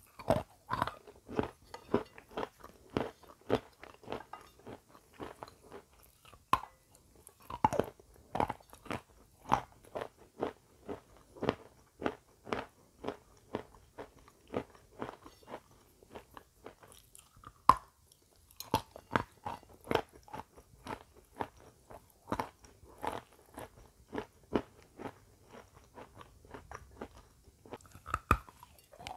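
Close-miked crunching and chewing of crisp baked meringue: sharp crunches about two a second as it is bitten and chewed, with short lulls between mouthfuls.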